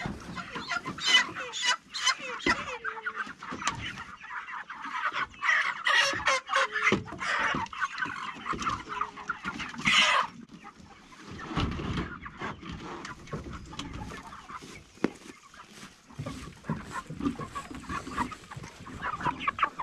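Meat chickens clucking and calling in a busy commotion as they are caught from a pasture pen and loaded into plastic poultry crates, with sharp knocks from crate handling. The commotion is loudest in the first half and thins out about halfway through.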